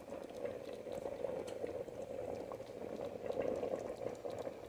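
Thick, creamy chicken-and-dumplings broth simmering in a metal stockpot: a steady bubbling with many small irregular pops.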